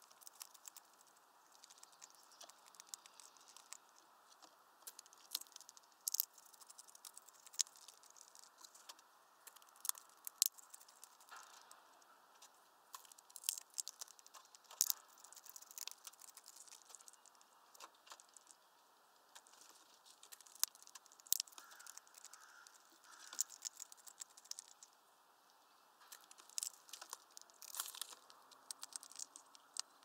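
Hawfinch cracking seeds in its heavy bill at a feeder: irregular sharp clicks and crackles, often several in quick succession.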